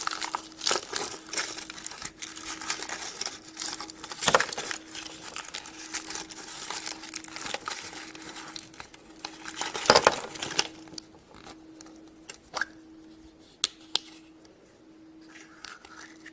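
Foil wrapper of a surprise egg crinkling and rustling as it is unwrapped by hand, with sharp clicks and cracks. The loudest come about four and ten seconds in. After about eleven seconds the handling thins to occasional clicks and taps.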